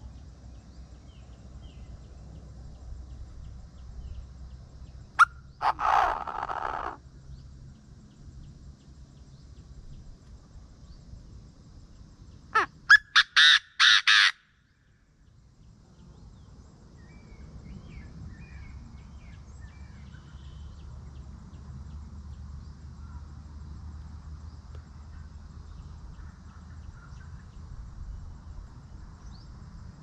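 Chinese francolin calling: a harsh call about six seconds in, then a loud, rapid series of about six harsh notes about halfway through.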